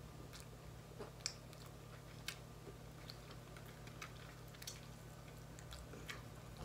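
Faint eating noises as chicken is eaten by hand: scattered small clicks and mouth smacks about once a second, over the steady low hum of an ice machine running.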